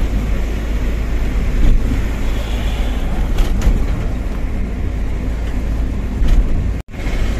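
Steady engine and road noise inside the cab of a Tata 1512 diesel truck cruising on a highway, mostly a low rumble. The sound drops out for an instant near the end.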